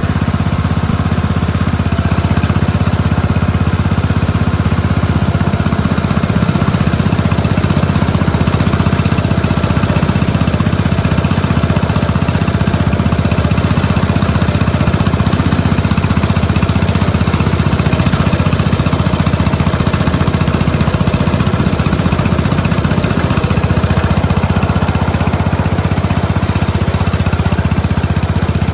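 Small engine of a ride-on garden-railway locomotive running steadily as it travels along the track, pushing snow with its front plow.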